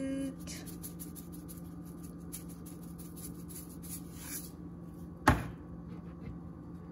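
A single sharp knock about five seconds in, with a short ring-out, over a steady low hum. A hummed note by a person ends just after the start.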